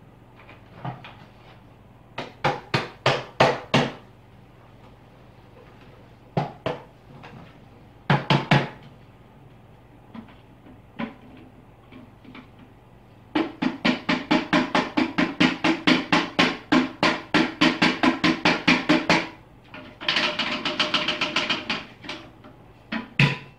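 Rapid, even knocking of the Shark Rotator's plastic dust cup as it is tapped to shake the debris out onto paper, about seven knocks a second for several seconds near the middle. A few shorter runs of knocks come before it, and another dense run comes near the end.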